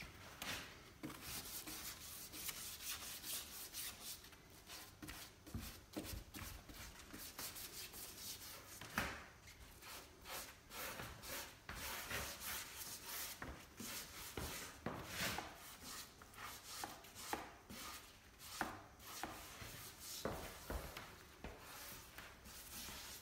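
Small hand brush scrubbing over the weathered wooden back of a bench in quick, irregular scratchy strokes, with a sharper scrape about nine seconds in.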